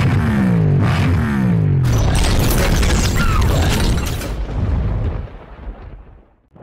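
Sound effects from an animated video intro: deep booms and repeated falling sweeps over music, with sharp hits a couple of seconds in, fading out near the end.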